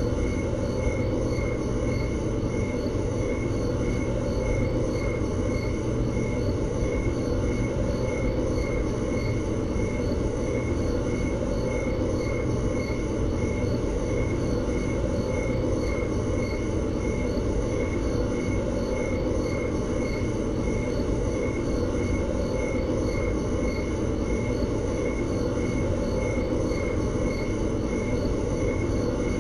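Steady machine drone, a low hum with rushing noise, unchanging throughout, with a faint high tone pulsing evenly above it.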